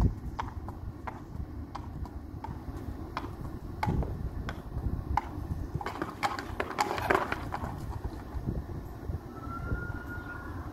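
Horse's hooves clip-clopping on a hard stable-yard surface as it is trotted up in hand, the strikes coming closer together in a brief burst midway, then thinning out as the horse pulls up and stands.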